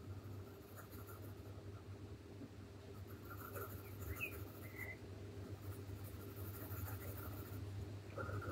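Faint scratching of a Derwent Chromaflow coloured pencil on paper as a colour swatch is filled in, stronger from about three seconds in, over a steady low hum.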